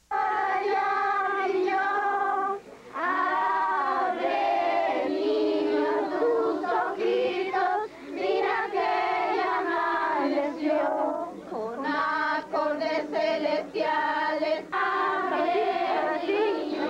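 A group of voices, women and children, singing a Christmas hymn together in phrases of long held notes, with brief breaths between lines.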